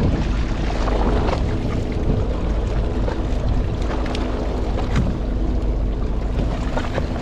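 Fishing boat's engine running steadily, a low drone, with wind buffeting the microphone.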